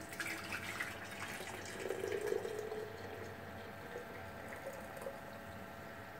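Hot hibiscus tea being poured from a saucepan through a small plastic tea strainer into a glass carafe: a faint, steady splash and trickle of liquid.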